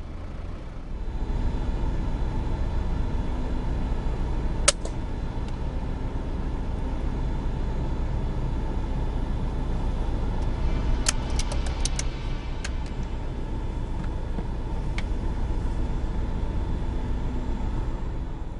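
Steady low rumble of a vehicle engine running at idle. A single sharp crack comes about five seconds in, and a quick run of clicks around eleven to twelve seconds, with another click near fifteen seconds.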